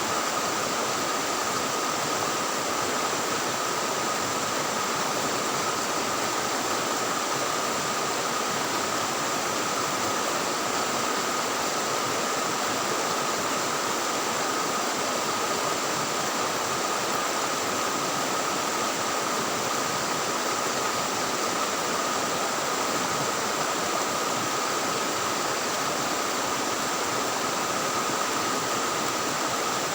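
Fast-flowing river, swollen after a flood, rushing steadily. Two faint, steady high tones run through it.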